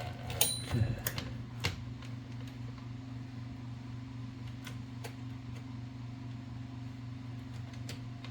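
Light metallic clicks and taps of typewriter carriage parts being fitted by hand, a cluster in the first second with one short metallic ring, then a few isolated ticks, over a steady low hum.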